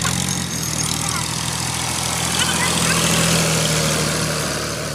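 Fiat 480 tractor's three-cylinder diesel engine running steadily, getting a little louder through the middle and easing off near the end.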